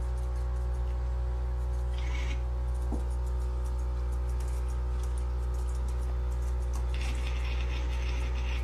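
A steady low hum with a few faint fixed tones runs throughout and is the loudest sound. Over it come faint, breathy cat meows, briefly about two seconds in and again near the end, as the white cat opens its mouth wide.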